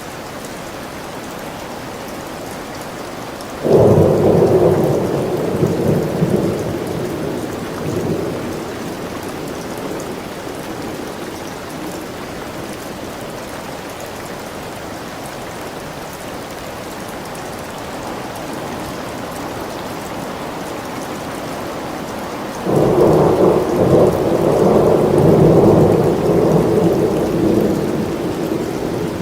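Steady rain falling, with two rolls of thunder: one breaking suddenly about three and a half seconds in and rumbling away over several seconds, and a second, longer one starting near the end.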